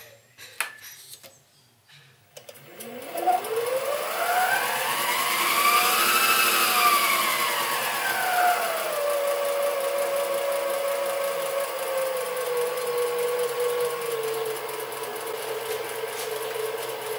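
Sieg SC3 mini lathe starting up after a few clicks. Its motor and spindle whine rises in pitch to a peak about six seconds in, then falls back and settles to a steady lower tone as the spindle speed is brought down.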